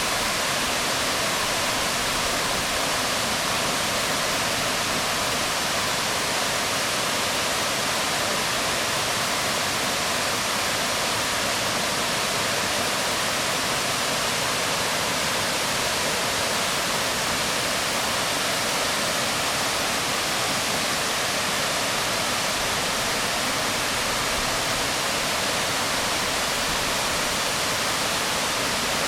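Waterfall splashing onto rocks, a steady, even rush of water with no change.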